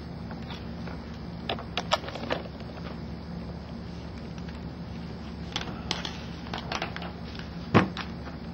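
Marker scratching and tapping on a whiteboard in short strokes, with a sharper knock near the end, over a steady low hum.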